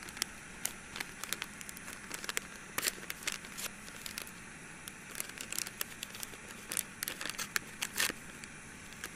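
A paper seasoning packet being handled and torn open by hand: irregular crinkling and tearing crackles, over a steady hiss from a gas canister stove heating the pot.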